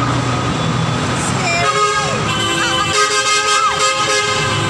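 Vehicle horn honking twice in traffic, a short blast and then a longer one of about a second and a half, over steady road noise.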